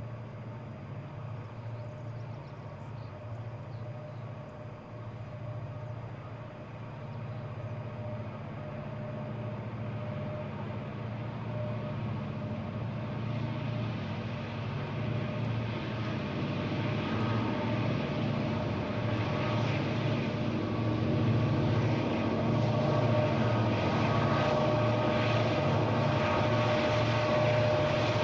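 A lashup of EMD SD40-2 diesel-electric locomotives working a freight train as it approaches: a steady, deep engine drone that grows steadily louder, filling out with higher-pitched engine and turbo sound about halfway through.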